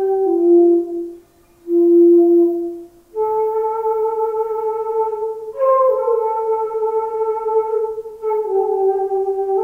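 Solo transverse flute playing slowly: a few low held notes with short pauses between them, then one long sustained note with a brief upward bend about halfway through, stepping down to a lower note near the end.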